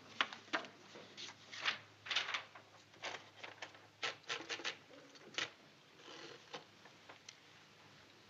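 Papers and books being shuffled and handled on a tabletop: an irregular run of rustles and light knocks that dies away about seven seconds in.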